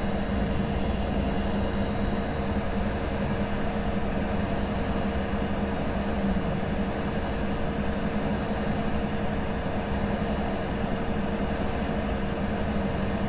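Budget clone hot air rework station blowing a steady stream of hot air at fan setting 3 and 380 °C, a steady hum and rush with two low steady tones. It is heating a phone's eMMC chip whose solder has not yet melted enough for the chip to move.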